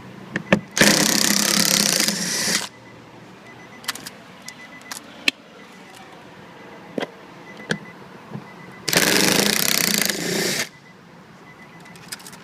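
Cordless impact driver hammering in two bursts of about two seconds each, backing out door panel fasteners, each burst easing off a little just before it stops. Small clicks from handling the tool and socket come in between.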